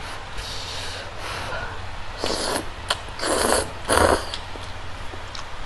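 Loud, breathy mouth noises of a person eating spicy noodles: three noisy bursts about two, three and four seconds in, after a fainter one near the start.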